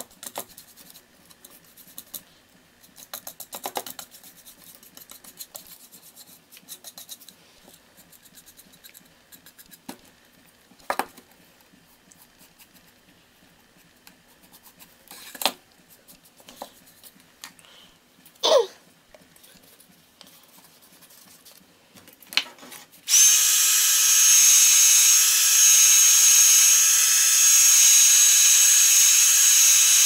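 Soft paintbrush strokes over a cardboard panel with a few sharp taps. About 23 seconds in, a handheld electric blower switches on and runs steadily with a high whine, drying the wet gesso whitewash.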